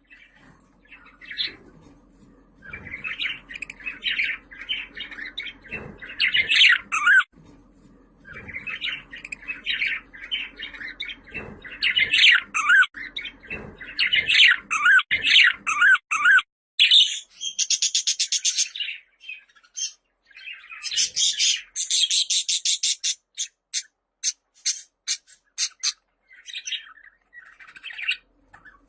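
Budgerigars warbling and chattering, a stream of chirps and squawks. About sixteen seconds in the low background hum stops and runs of rapid, clicking chatter follow.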